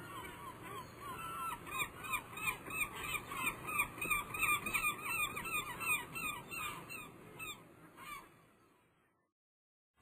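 Birds honking in a fast series of short calls, about three a second, which fade out shortly before the end.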